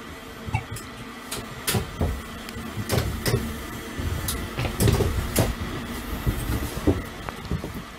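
About a dozen irregular clicks and knocks over a steady low rumble in a high-speed train's driver's cab.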